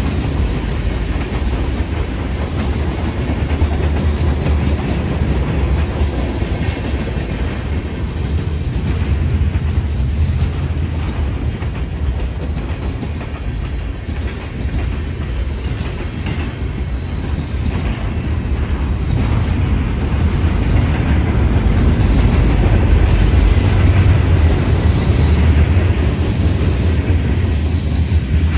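Freight train cars (tank cars, boxcars and intermodal cars) rolling past: a steady deep rumble with wheels clicking over the rails. The end of the train passes near the end.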